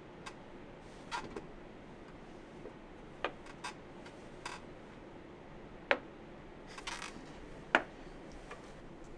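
Wooden chess pieces being set down and slid on a wooden board: about ten light, separate clicks and taps at an uneven pace as moves are made in quick succession.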